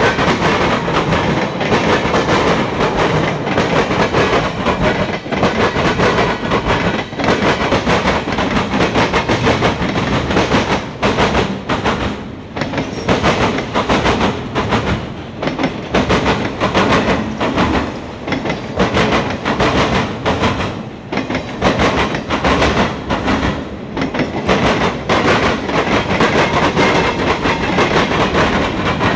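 Freight train cars rolling past close by: steel wheels rumbling on the rails with a rapid, unbroken clickety-clack over the rail joints.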